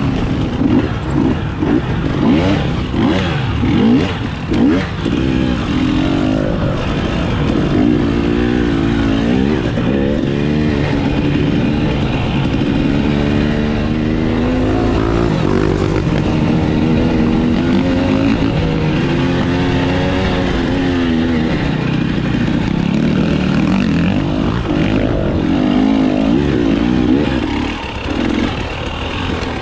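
Dirt bike engine revving up and down as the rider works the throttle and shifts gears through the course, easing off briefly near the end.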